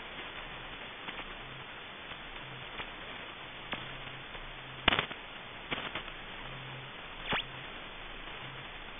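Shortwave receiver hiss on 5000 kHz, broken by several brief swishing chirps as ionospheric sounder sweeps cross the tuned frequency. The loudest comes about five seconds in, with a cluster just before six seconds and another near seven.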